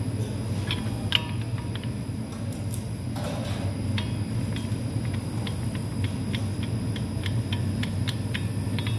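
AIT HDI 21K400 TC induction heater running with a steady low hum and high whine as it heats a train wheel bearing toward 200 °C. Sharp ticks sound over it, at first scattered and then coming several times a second in the second half.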